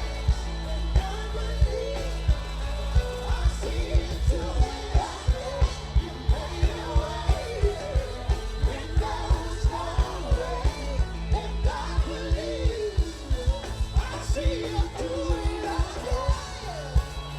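Live gospel band music with singing over a steady beat and heavy bass.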